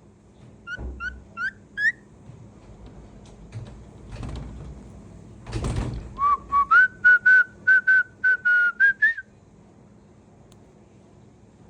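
Cockatiel whistling: four short upward-sliding whistles, then a quick run of about a dozen short whistled notes at nearly one pitch, stepping up at the start and sliding up at the end. A single thump comes just before the run.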